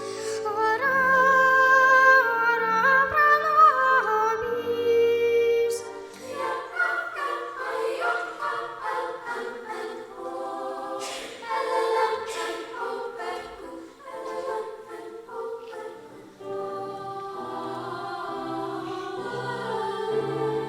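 A choir singing sustained notes in several parts. The lowest part drops out about six seconds in and comes back near the end.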